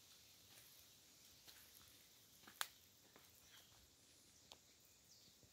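Near silence: faint outdoor background hiss with a few scattered soft clicks and one sharper tick about two and a half seconds in.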